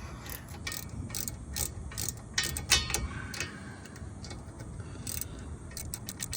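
Hand ratchet clicking as it backs out the driveshaft U-joint fasteners: irregular strokes with a louder metallic knock near the middle, then a fast, even run of clicks near the end as the bolt spins loose.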